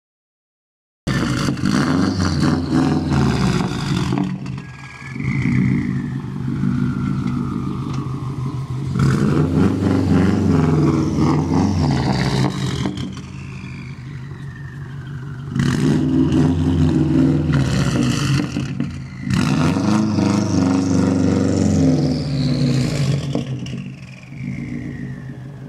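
Subaru WRX STI's turbocharged 2.5-litre flat-four, straight-piped with no catalytic converter or muffler, rising in revs loudly in about four bursts, each followed by a whistle falling in pitch as the turbo spools down. The sound begins abruptly about a second in.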